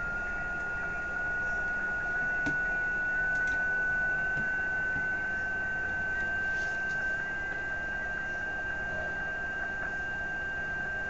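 Amateur radio receiver in CW mode: a steady hiss with one clear, continuous tone that slowly rises in pitch, a signal being heard through the receiver.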